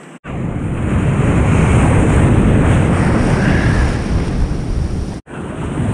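Surf washing around a wader in the shallows, with wind buffeting the microphone: a loud, steady rush. It drops out for an instant just after the start and again about five seconds in.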